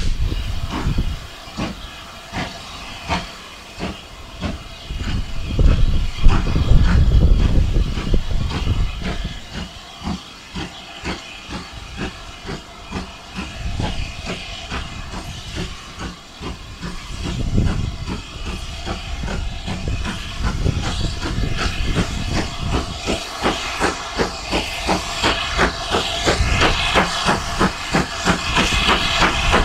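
GWR 42xx 2-8-0 tank engine 4270 working a train, its exhaust beating steadily at about two chuffs a second over the hiss of open cylinder drain cocks, growing louder as it nears. Heavy low rumble of wind on the microphone in the first second and again a few seconds later.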